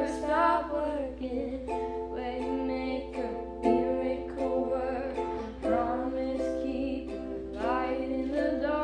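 Voices singing a slow worship song together, accompanied by a strummed acoustic string instrument.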